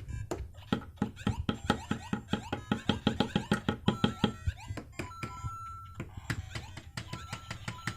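Electronic beeps and short game jingles from the LEGO Luigi interactive figure's speaker, over a rapid run of plastic taps and knocks, about five a second, loudest from about one second in to halfway through. Near the middle a held electronic tone sounds.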